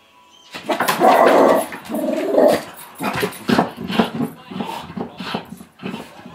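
Small white terrier growling and barking in excited bursts. It starts about half a second in, is loudest over the next two seconds, then goes on in shorter, quicker bursts.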